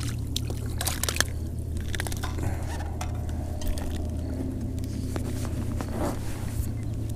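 Spinning reel being cranked as a largemouth bass is reeled in and swung out of the water, with sharp clicks and scrapes of reel and rod handling, most of them in the first second or so. A steady low hum runs underneath.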